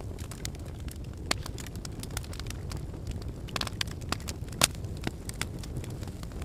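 Wood fire burning in a fireplace: steady low noise of the flames under irregular sharp crackles and pops, the loudest pop about four and a half seconds in.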